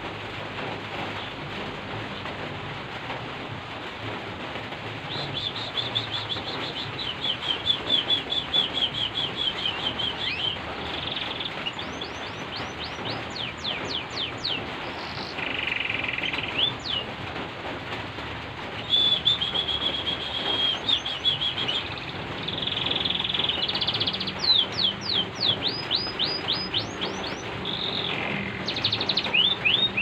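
Domestic canary singing, starting a few seconds in, in phrases of rapid trills and fast downward-sweeping notes with short pauses between them, over the steady hiss of falling rain.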